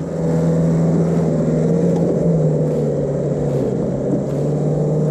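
Nissan Navara PRO-4X's 2.3-litre twin-turbo diesel four-cylinder pulling steadily under load as the ute climbs a loose dirt hill, its engine note holding nearly level with a slight dip about halfway through.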